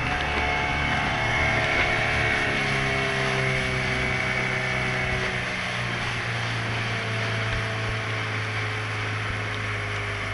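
Small motorboat's engine running steadily under way, its pitch easing down slightly, over the wash of water past the hull and wind on the microphone.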